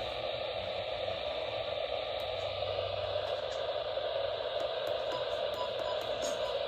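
Steady static hiss from a weather radio receiver with no voice on the channel.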